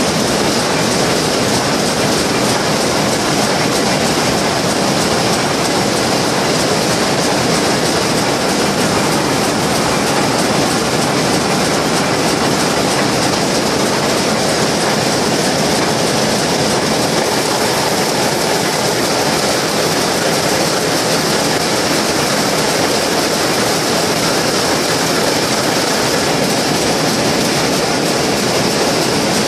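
Shuttleless looms weaving terry towels, running at full speed with a loud, steady, dense mechanical clatter.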